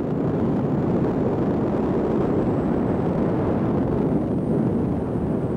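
Wind rushing over the microphone aboard a motorboat under way, with the boat's running noise mixed in: a steady, low rushing noise with no clear beat or pitch.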